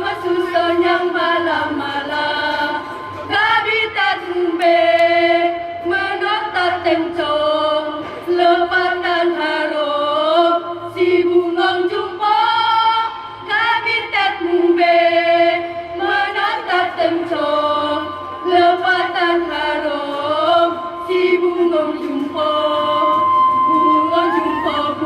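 A choir singing in harmony: the low voices hold steady notes while the upper voices move between sustained chords.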